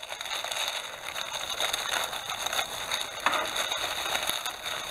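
Plastic bubble wrap crinkling and crackling as it is handled and pulled open by hand, with many small scattered clicks.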